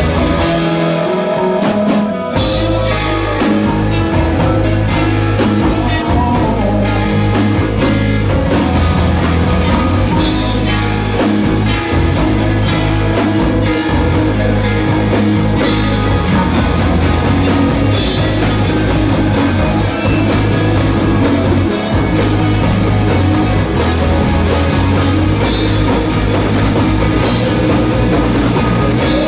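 Live rock band playing electric guitars, bass guitar and a drum kit. The bass and drums drop out at the start, leaving the guitar alone, and the full band comes back in about two seconds in.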